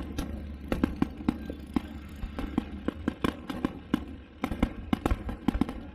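Fireworks going off: a rapid, irregular run of sharp bangs and crackles, over a steady low hum.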